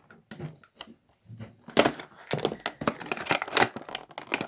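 Toy packaging being torn open and crinkled by hand: a few soft handling knocks, then from about two seconds in a dense run of sharp crackles and tearing.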